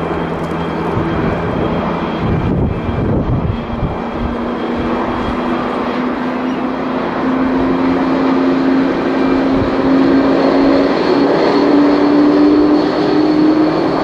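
Twin-engine jet airliner's engines running loud and steady, with a tone that slowly rises in pitch through the second half as the engines spool up.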